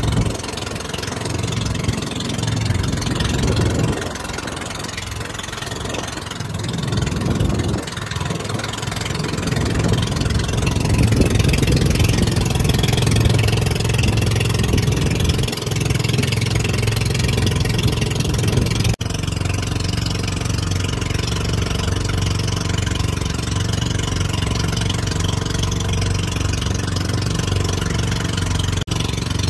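Outrigger boat's engine running steadily under way, with wind and water rushing past the hull.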